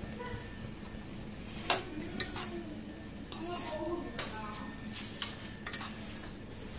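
A steel spatula stirs thick bottle gourd curry in a nonstick kadai over a steady sizzle. A handful of sharp clicks and scrapes come as the spatula knocks against the pan.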